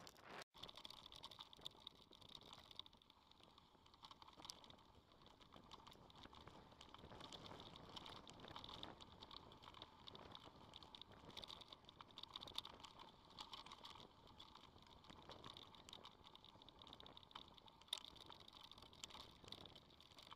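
Faint rattling and ticking of a mountain bike rolling over a rough dirt track, over a steady hiss.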